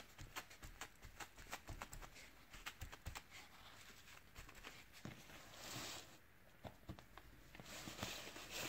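Faint rustling of a paper tissue dabbing and wiping wet liquid patina off clay-decorated relief on a wooden picture frame, with many small taps and clicks and a brief soft swish about six seconds in.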